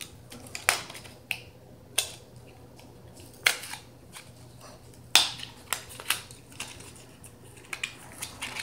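Small cardboard mascara box being handled and worked open by hand: a string of irregular sharp crackles and taps, the loudest about five seconds in.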